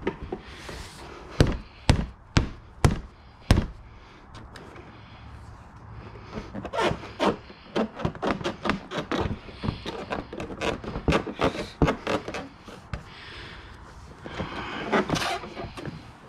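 Motorcycle seat being pressed and knocked down by hand into its mounts. First come five sharp thunks about half a second apart, then a long run of quicker knocks and clicks, and a scrape near the end.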